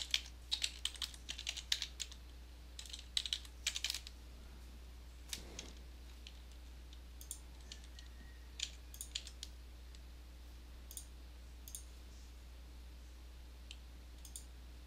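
Faint computer keyboard typing: quick runs of keystrokes in the first four seconds, then scattered single clicks, over a steady low hum.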